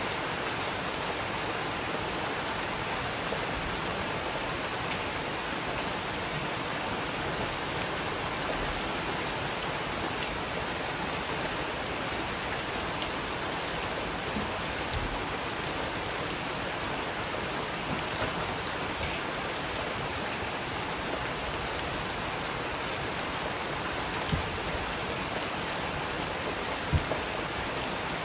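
Steady rain falling, mixed with the light crackle of a wood fire and a couple of louder pops near the end.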